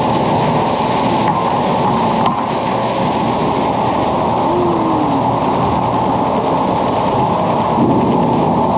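Sawmill machinery at a band saw head rig running with a loud, steady mechanical din, with a couple of faint clicks about one and two seconds in.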